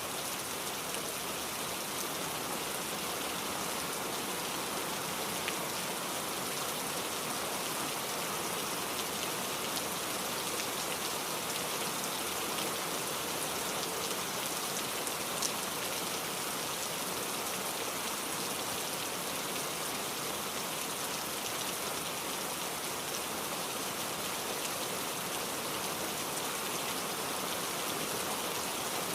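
Steady rain falling, an even hiss with scattered individual drop ticks on a surface.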